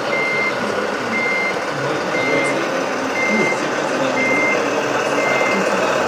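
Reversing beeper from an RC construction truck's sound system, about one steady high beep a second, over a constant noisy background.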